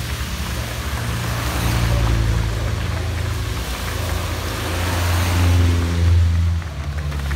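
Mini Challenge Cooper S race cars running slowly one after another along the pit lane at low revs. The engine note shifts a few times as the cars come by.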